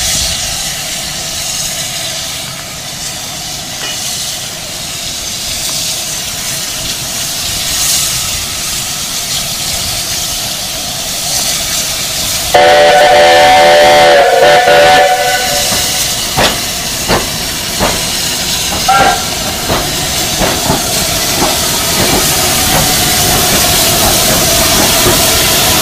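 Steam locomotive backing slowly tender-first, its steam hissing steadily, sounding a chord-like steam whistle loudly for about two and a half seconds halfway through, the pitch sagging as it shuts off. A string of short knocks and brief whistle pips follows as it draws close.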